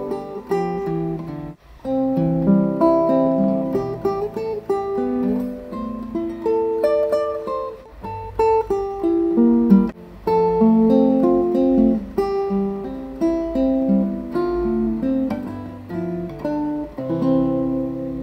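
Solo nylon-string classical guitar, fingerpicked, playing the closing coda: a plucked melody over a bass line, with short breaks about a second and a half in and again around ten seconds in, and a held chord near the end.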